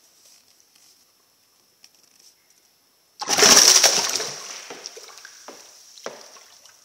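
A kujaku koi thrashing in a blue plastic bowl of water. A sudden loud splash comes about three seconds in and dies away over a couple of seconds, followed by two smaller splashes.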